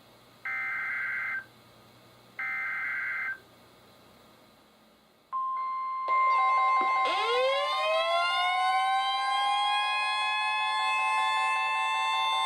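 NOAA Weather Radio emergency alert: two bursts of warbling SAME header data tones, about a second each. About five seconds in, the steady 1050 Hz warning alarm tone starts. A second or two later a chorus of weather radios' own alarms joins it, among them a siren that winds up in pitch and a rapid beeping, as the radios are triggered for a special marine warning.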